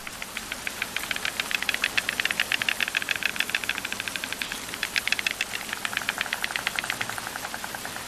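White storks clattering their bills: a fast, rattling run of wooden-sounding clacks in two long bouts, the second weaker near the end. This is the stork's greeting and courtship display.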